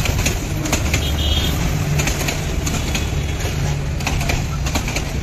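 Bangladesh Railway passenger train rolling past, with a steady low rumble and scattered sharp clacks from its wheels on the track.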